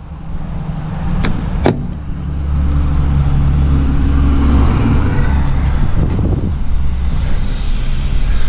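A motor vehicle engine running steadily, with two or three sharp clicks between one and two seconds in.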